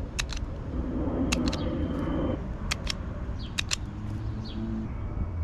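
Wire stripper clicking as it strips the ends of turn-signal wires: sharp clicks, mostly in pairs, about four squeezes in all. A low hum runs underneath, with a fainter humming tone partway through.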